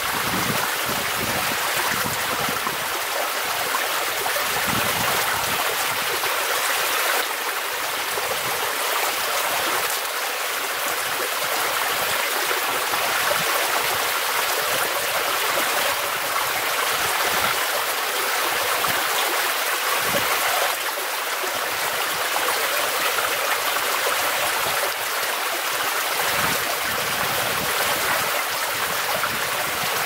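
Steady, unbroken rushing noise of outdoor ambience, with faint low rumbles flickering now and then.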